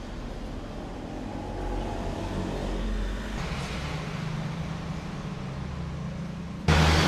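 A motor vehicle engine running in the background, a steady low hum that swells a little toward the middle. About a second before the end the sound jumps suddenly louder and harsher.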